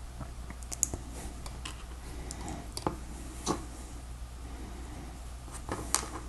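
Scattered light clicks and taps of small plastic LEGO pieces being handled, about half a dozen, over a low steady hum.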